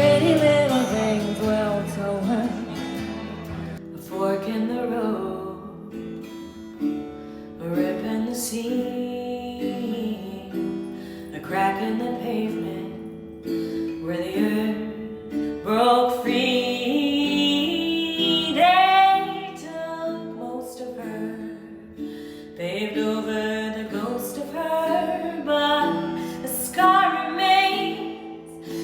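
A woman singing over strummed acoustic guitar, in sung phrases with short gaps between them.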